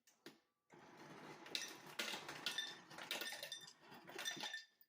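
Refrigerator door ice dispenser running, ice cubes clattering and clinking into a glass. It starts about a second in and stops just before the end.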